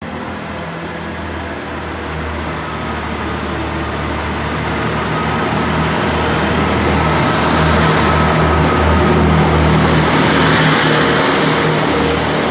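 A train running past, growing louder over about ten seconds and then easing slightly, with a steady low hum under the rolling noise.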